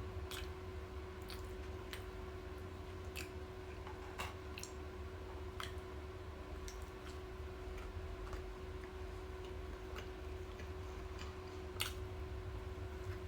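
A person chewing and eating a Big Mac with scattered, irregular sharp mouth clicks and smacks, over a steady low hum.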